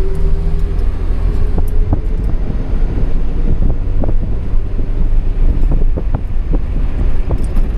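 Toyota AE86 Corolla Trueno driving at a steady speed, heard from inside the cabin: a low engine drone and road rumble, with wind buffeting the microphone. A steady engine tone fades about a second in.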